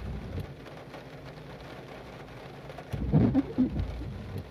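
Steady rain falling on the car, heard from inside it. About three seconds in comes a short, low cooing call, typical of a pigeon or dove.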